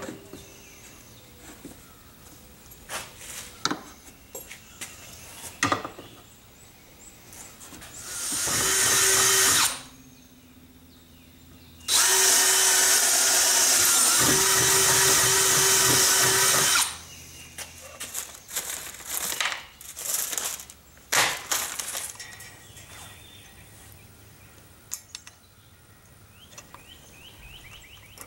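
Cordless drill boring into a plywood bench top: a short run about eight seconds in, then a steady run of about five seconds. Scattered knocks and clatter come before and after.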